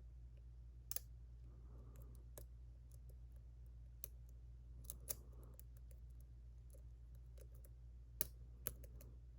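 Faint small clicks and ticks of a lock pick working the pins of a JPM Surf lock, sharpest about a second in, around five seconds and twice near the end, over a low steady hum.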